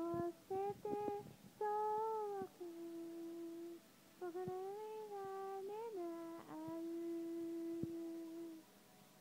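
A woman humming a slow tune softly, in long held notes with small slides between them and short breaks, stopping near the end.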